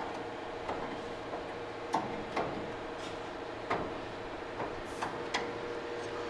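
Scattered light clicks and knocks, about eight in six seconds and unevenly spaced, from the welded-steel fender skirt being worked loose by hand from underneath. A steady shop hum runs beneath them.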